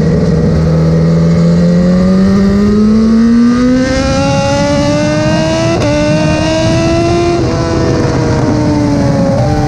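Motorcycle engine at track speed: its revs climb steeply, dip briefly twice as it shifts up, then ease off and fall. Wind rush on the bike-mounted microphone runs underneath.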